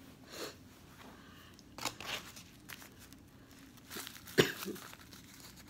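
Paper napkin wrapped around a cutlery roll rustling and crinkling in the hands in scattered short bursts, with one sharp knock a little over four seconds in.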